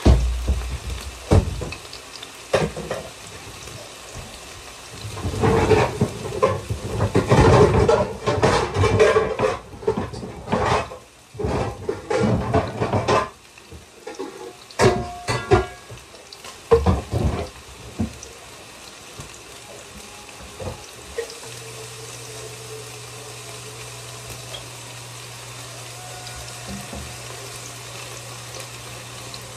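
Chicken frying and sizzling in a pan, with several seconds of pots and utensils clattering and knocking. A low steady hum comes in past the middle.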